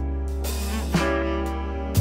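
Outro music: guitar over a steady bass line, in a jazz style.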